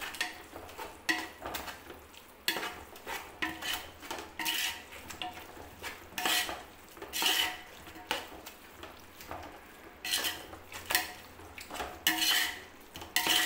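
A metal ladle scraping and knocking against the sides and bottom of an aluminium pot as a thick onion-tomato masala is stirred, in irregular strokes about once a second, each with a brief ring from the pot.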